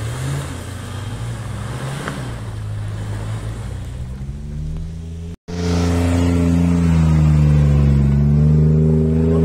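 Off-road 4x4's engine running and revving, its pitch fairly steady at first. It cuts out sharply about halfway through, then comes back louder, the pitch dipping and climbing again.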